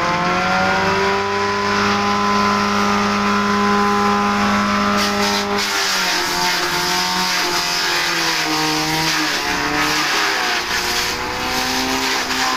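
Belt-driven electric grass chopper, powered by a 1 HP electric motor, running with a steady grinder-like whine of several tones after a brief rise in pitch as it finishes spinning up. From about halfway the pitch wavers and dips under load, with crackling, as elephant grass is fed into the hopper.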